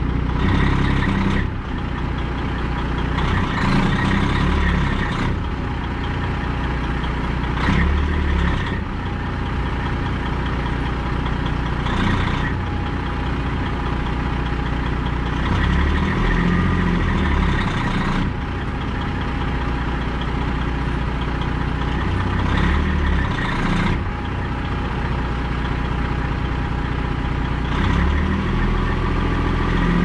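Peterbilt semi truck's diesel engine running, its revs rising and falling several times as the truck tries to pull out of packed snow.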